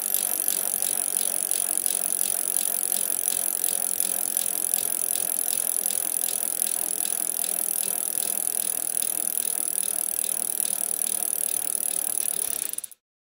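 A bicycle on the move: a steady hiss and rattle with an even run of ticks, cutting off abruptly near the end.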